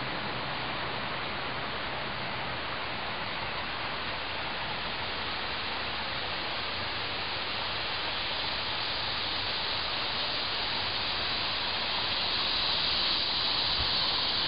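Steady, even rushing hiss of a small stream, growing slightly louder near the end.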